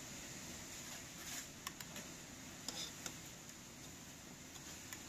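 A metal spoon scooping thick rose-petal jam from a pot and filling a glass jar: a few light clicks and scrapes against the pot and the jar's rim.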